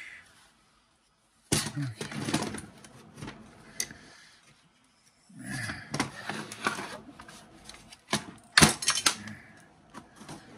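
Hands handling a partly dismantled Ryobi 18-volt cordless circular saw: its plastic housing and metal parts clatter, click and knock against each other and the workbench in three short bursts, the sharpest clicks near the end.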